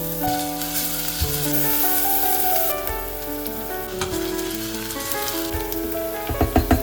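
Food sizzling as it fries in a hot pan, with a quick run of several knocks near the end.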